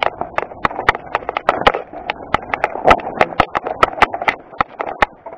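Mountain bike clattering down rocky singletrack: a rapid, irregular run of sharp knocks and rattles from the bike and tyres hitting stones, over a rough rushing noise. It eases off near the end as the trail smooths.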